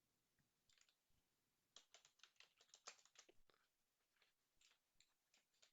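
Faint typing on a computer keyboard: a quick run of key clicks about two seconds in, with scattered single clicks before and after.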